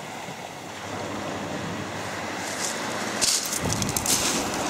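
Sea waves breaking and washing on a shingle beach, a steady rush. About three seconds in, wind starts buffeting the microphone with a low rumble.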